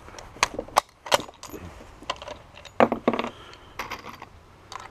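Bolt of a Lebel Model 1886/93 bolt-action rifle being worked just after a shot: a string of sharp metallic clicks and clacks.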